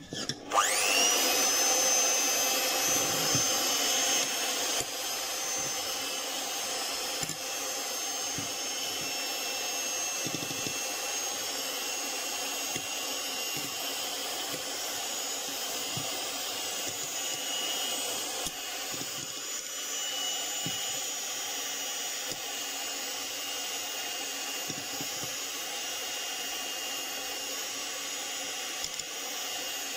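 Electric hand mixer switching on about half a second in, its whine rising as the motor spins up, then running steadily as the beaters whip foamy egg whites and brown sugar into meringue.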